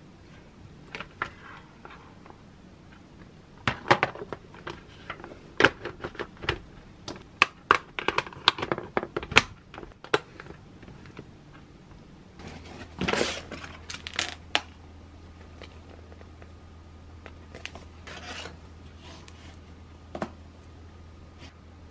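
Plastic lunchbox clattering as it is handled and its stacked lid and side clips snapped shut, a quick run of sharp clicks and knocks. Then plastic food pouches rustling as they are unpacked.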